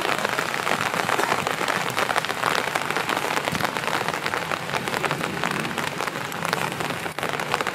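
Steady rain, with a dense patter of drops ticking close by.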